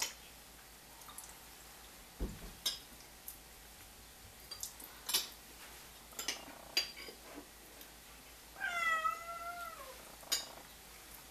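A cat meows once, a single long wavering call a little past three-quarters of the way in. Light clicks and taps sound throughout.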